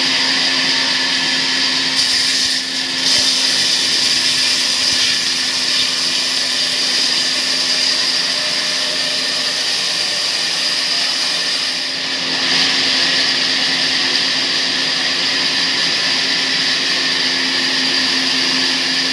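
Sawmill saw running steadily: a constant machine whine over a low hum, its high end changing briefly about two seconds in and again about twelve seconds in.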